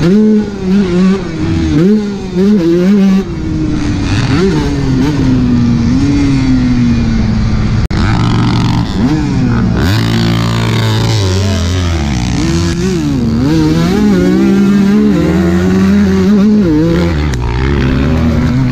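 Kawasaki motocross bike's engine being ridden hard around a dirt track, revving up and dropping off again and again through the throttle and gear changes.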